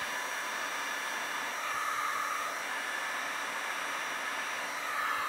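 Handheld electric heat gun blowing steadily, with a faint steady hum under the rush of air. It is heating the trouble edges of freshly applied window tint film on a car door window so the film will bond.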